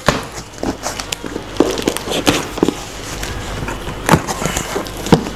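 A cardboard shipping box being opened by hand: flaps lifted and pushed back and packing tape slit with scissors, giving irregular knocks, scrapes and rustles, with a sharper knock about four seconds in.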